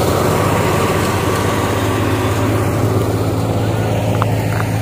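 Tractor-driven wheat thresher running steadily: a constant low hum over an even rushing noise as its blower throws out chopped straw and chaff.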